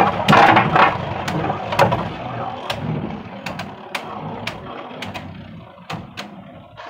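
Two Beyblade Burst tops, Drago Fafnir and Spryzen, spinning in a plastic stadium: a rattling whir with sharp clicks as they collide. It is loudest at first and fades as the tops slow and settle near the centre, with only scattered clicks toward the end.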